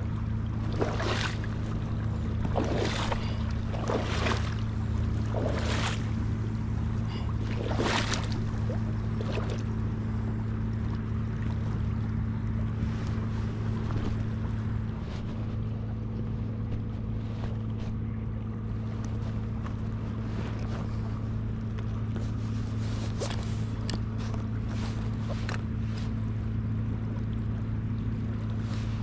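Steady rush of river water around a wading angler, with wind on the microphone and a low steady hum. About half a dozen short, sharp noises come in the first ten seconds, and a few fainter ones follow later.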